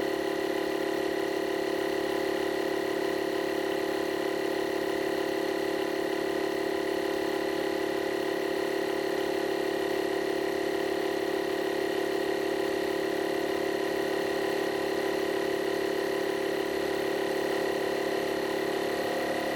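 Avid digital portable air compressor running steadily at one constant pitch while it pumps a car tyre up towards its set pressure of 32 psi.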